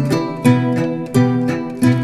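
Background music: a plucked string instrument picking notes in a steady rhythm.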